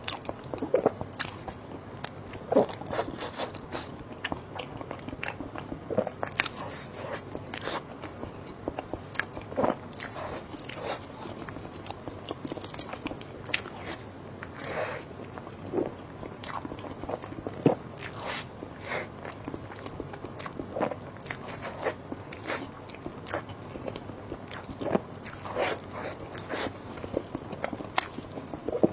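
Close-miked eating: a person biting and chewing food, with irregular crunchy bites and clicks.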